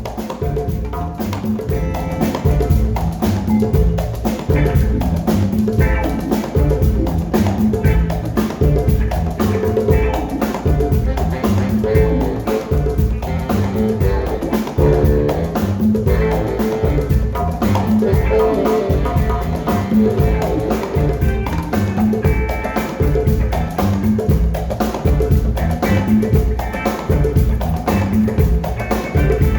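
Live band playing an up-tempo groove with drum kit, hand percussion and a repeating bass line.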